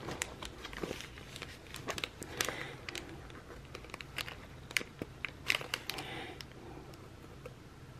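Paper sticker sheet crinkling and clicking as stickers that won't come up are picked at and peeled. Sharp little clicks and short rustles come thick through most of it and thin out near the end.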